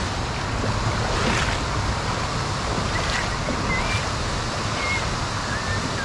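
Steady rushing of creek water pouring over a low concrete weir.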